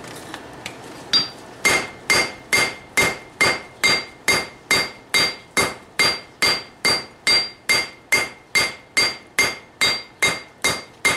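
Hammer blows on hot steel over an anvil: one blow about a second in, then a steady run of strikes about two and a half a second, each with a clear metallic ring. The steel is being drawn down to an even thickness.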